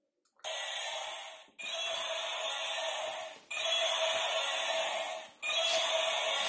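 Remote-control stunt car's electric drive motors whirring in repeated runs of one to two seconds, four times, with short gaps as the throttle is pressed and released.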